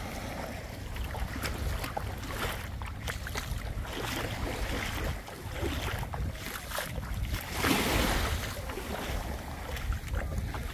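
Wind buffeting the microphone over the wash of sea water, with a louder surge about eight seconds in.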